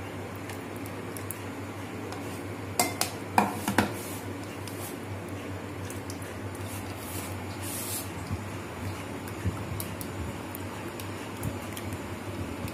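Kitchenware clatter while straining mango puree: a quick run of four or five sharp knocks of a bowl and strainer about three seconds in, then soft scraping and small clicks of a spatula stirring the thick pulp in a plastic sieve.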